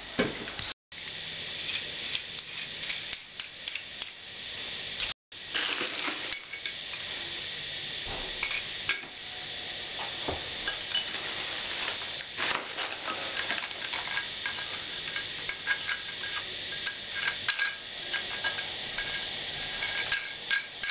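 Small clicks and clinks of a plastic flush-button fitting being handled and screwed onto a ceramic toilet cistern lid, with plastic wrapping rustling, over a steady hiss. The sound cuts out briefly twice near the start.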